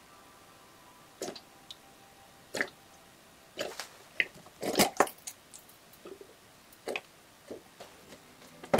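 Plastic oil bottle being handled and capped: scattered short clicks, crinkles and taps of the plastic. The loudest cluster comes about halfway through.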